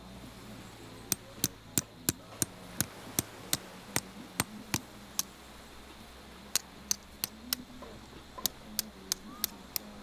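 A series of sharp knocks at a steady pace of about three a second, in three runs with short pauses between them.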